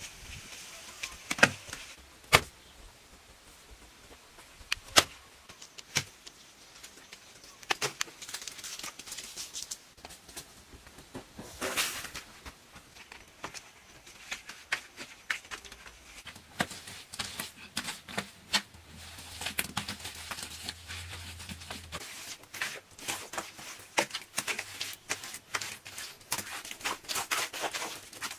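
Close-miked eating sounds: irregular crunches, clicks and crackles of food being bitten and chewed, coming more thickly in the second half.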